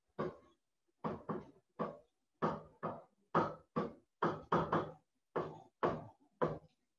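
A stylus knocking against a digital writing surface during handwriting: about a dozen short, sharp taps at an uneven pace, one with each pen stroke.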